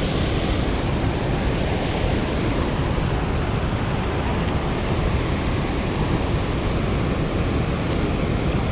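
Loud, steady rush of water pouring out of a dam during a heavy release, an unbroken roar of churning tailwater.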